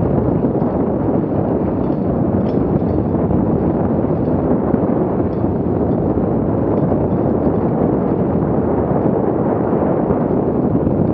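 Steady loud rush of wind buffeting the microphone of a camera on a mountain bike descending a dirt trail at speed, mixed with the rumble of the bike over the ground.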